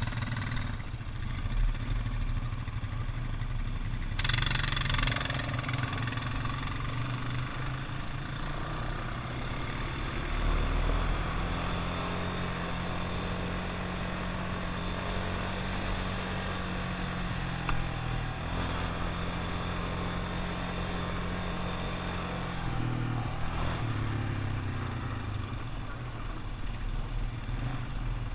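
ATV engine running while riding, its pitch rising and falling with the throttle, with a brief rush of noise about four seconds in.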